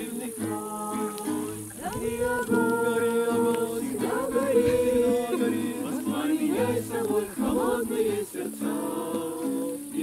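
A group of people singing a song together, accompanied by a strummed acoustic guitar.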